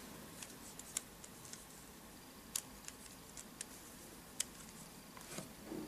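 Faint, scattered plastic clicks of a Rubik's Cube being turned and handled, a few sharper ticks among them.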